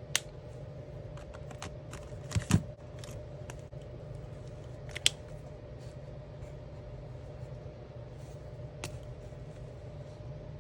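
Sharp clicks and knocks of alcohol markers being handled, four times over, the loudest a double knock a couple of seconds in, over a steady low hum.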